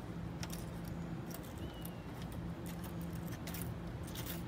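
Brass hose fitting being screwed by hand onto an RV's city water inlet: light, irregular metallic clicks and scrapes. A steady low hum runs underneath.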